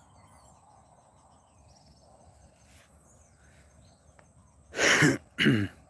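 Quiet open-air background with a few faint high chirps. Near the end come two short, loud, falling vocal sounds from a man, like throat-clearing or half-spoken words.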